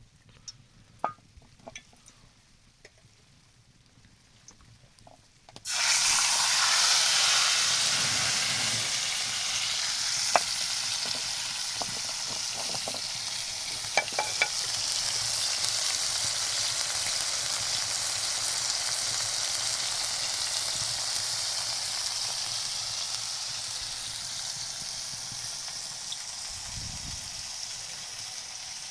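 Food frying in a pan: a loud sizzle starts abruptly about six seconds in and slowly eases off, with a few sharp clicks of a utensil.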